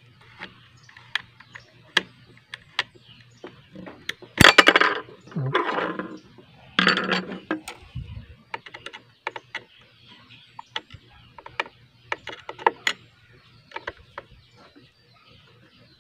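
Hand tools clicking and clinking on a chainsaw's chain tensioner and guide-bar nuts while the chain is tightened. Light, scattered metallic clicks run throughout, with three louder metal clatters between about four and eight seconds in.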